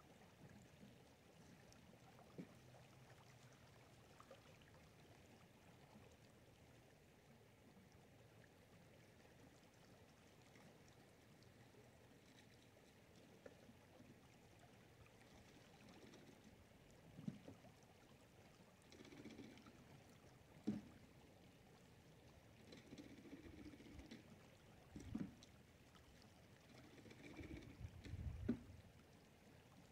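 Faint water sounds: a gentle steady flow, then from about halfway through intermittent sloshing and pouring with a few sharp knocks, as gear from a gold-prospecting sluice clean-out is rinsed in the water.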